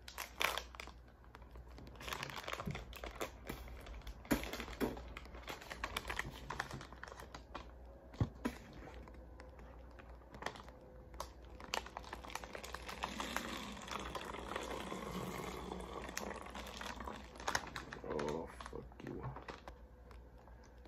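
Plastic drink pouch and thin plastic water bottle crinkling and clicking as they are handled, then liquid pouring from the pouch into the bottle, gurgling from about thirteen seconds in.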